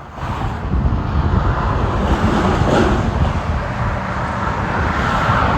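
Steady rumble of road traffic going by, with no single event standing out.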